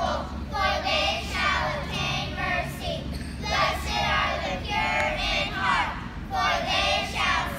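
A class of children reciting a Bible passage together in unison, their voices in short phrases broken by brief pauses.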